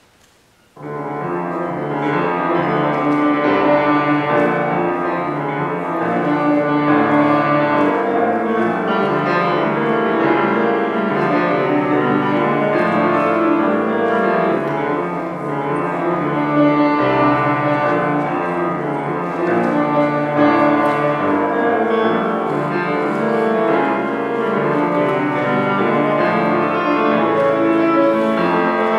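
Steinway grand piano played solo, a recital piece that comes in suddenly about a second in and goes on as a dense run of notes.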